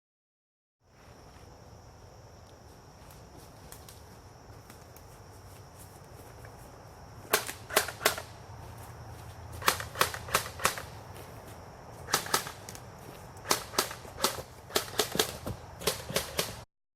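Airsoft guns firing: sharp, short cracks in quick groups of two to four shots, starting about seven seconds in, over a faint steady background with a thin high-pitched tone. The sound starts and stops abruptly, as at an edit.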